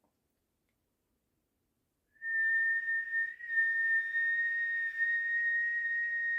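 Silence, then about two seconds in a person starts whistling one long, steady high note with a breathy edge, wavering slightly and creeping up in pitch.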